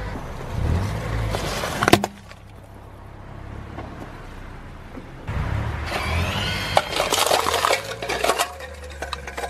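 Car tyre rolling slowly over plastic toys and crushing them over a low engine hum, with one loud sharp crack about two seconds in. After a quieter pause, a longer stretch of crunching and crackling plastic begins past the halfway mark, with many snaps and squeaks.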